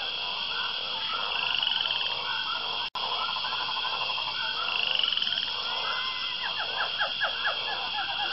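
A dense chorus of frog-like croaking calls, many overlapping short repeated calls, over a steady high drone. The sound cuts out for an instant about three seconds in.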